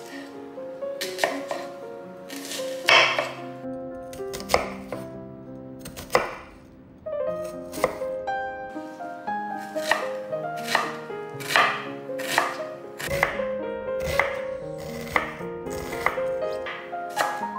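Chef's knife cutting an onion on a wooden cutting board: a few separate slicing strokes, then a steady run of chopping knocks, about two a second, from about ten seconds in. Soft background music plays underneath.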